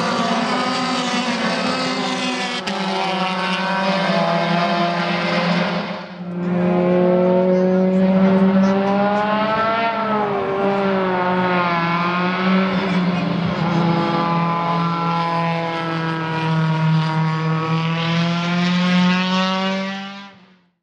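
Formula Renault 2.0 race car's two-litre four-cylinder engine running hard, its pitch swinging up and down as the revs change, with a brief dip about six seconds in. The sound fades out near the end.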